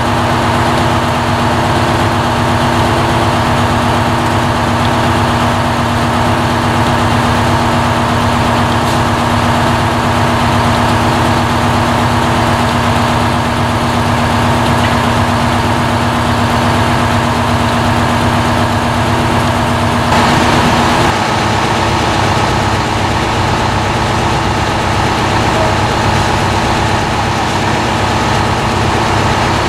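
Heavy diesel engine idling steadily; about two-thirds of the way through its tone shifts slightly.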